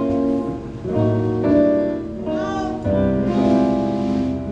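Amplified instrument at a band sound check playing a short run of held notes or chords, each lasting about half a second to a second before moving to the next.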